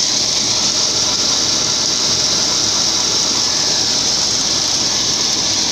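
A John Deere 2056 combine's diesel engine and unloading auger running steadily while a stream of shelled maize pours into a trailer, heard as an even drone under a loud, steady hiss.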